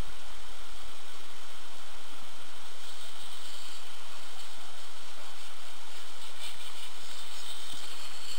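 Skis sliding over snow: a steady hiss.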